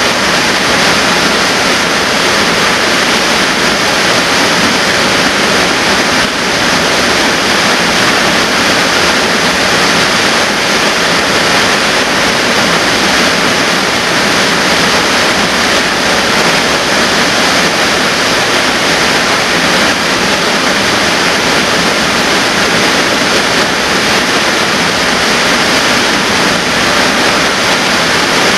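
Waterfall plunging into a rock pool: a loud, steady rush of falling water.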